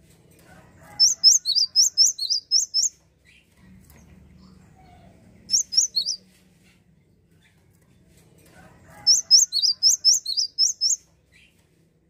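Cinereous tit (gelatik wingko) singing three bursts of rapid, high, sharp notes. The notes alternate high and slightly lower. The first and last bursts are runs of about eight notes, and a short run of three or four comes between them.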